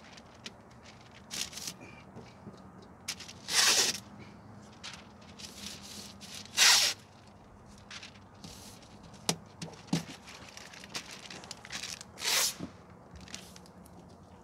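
Masking tape being pulled off the roll and torn while taping down masking paper: three loud rips a few seconds apart, with smaller ticks and rustles in between.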